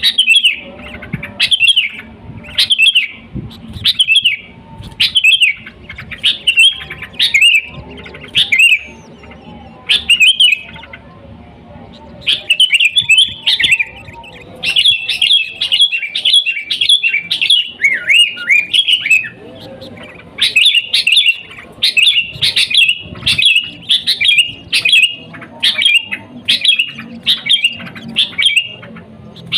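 Sooty-headed bulbul (kutilang) singing: short, loud whistled phrases repeated about once a second. After a short pause about eleven seconds in, the phrases run together into a denser, busier stretch of song.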